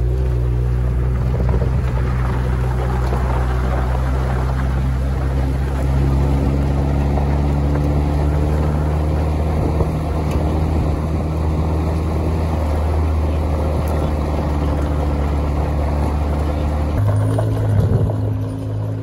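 Off-road pickup truck's engine running steadily as it drives up a gravel forestry road, with tyre and road noise over it. About two seconds before the end the engine note changes abruptly.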